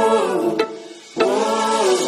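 Background music: a sung vocal line that fades about half a second in, with a brief near-quiet gap, then resumes softly.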